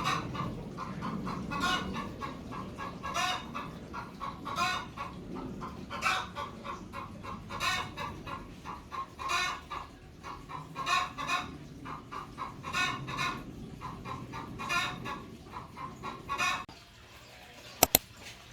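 Chickens clucking, a short call about every second over a low background rumble. The calls stop near the end, and two sharp clicks follow.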